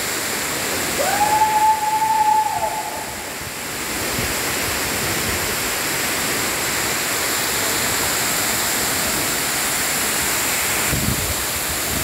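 Waterfall: a steady rush of water falling over sandstone ledges into a pool. About a second in, a single high note rises, holds for about two seconds and falls away over the rush.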